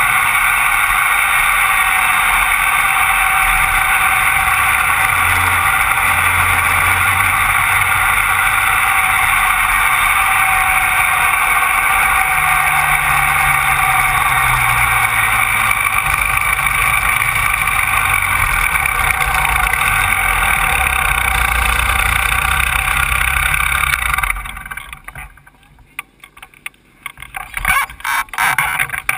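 Rotax Max 125cc two-stroke kart engine running steadily at racing speed, picked up by a camera mounted on the kart. About 24 seconds in the engine sound stops abruptly, leaving faint scattered clatter.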